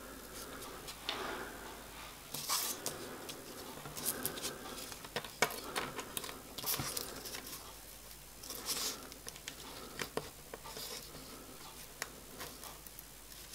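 Quiet handling noises: small bent metal pieces and cross-locking tweezers being moved and set down on paper, giving a scattering of light clicks, taps and rustles.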